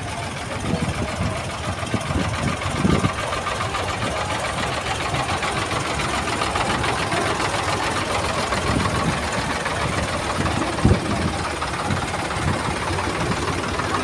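Several Ford tractors driving slowly past one after another, their engines running steadily with a knocking note. Two brief low thumps stand out, about three seconds in and again about eleven seconds in.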